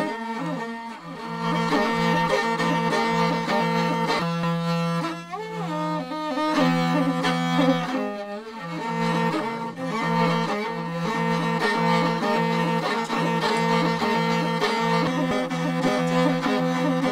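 Morin khuur (Mongolian horsehead fiddle) bowed, playing a slow melody over a steady low held note.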